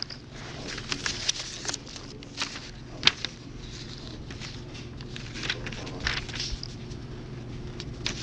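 Scattered rustling and handling noises with short clicks, the sharpest about three seconds in, over a steady low hum.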